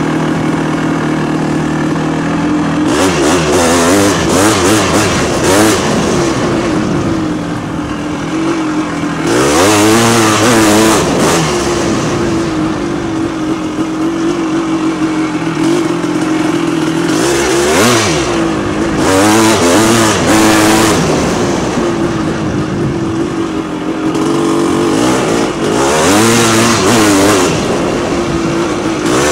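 Single-cylinder YZ400 engine in a Yamaha Blaster ATV, ridden along a tight trail: the engine revs up and down again and again as the throttle is opened and closed, with bursts of loud rushing noise as it pulls hardest.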